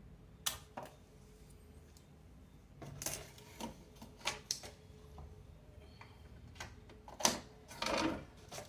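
Scattered clicks and short scraping handling noises, irregularly spaced, over a faint steady hum; the loudest click comes about seven seconds in.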